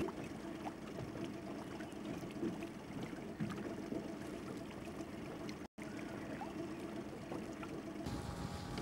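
Water lapping and gurgling against the hull of a small boat trolling slowly, with a low steady hum underneath. The sound cuts out for an instant a little past halfway.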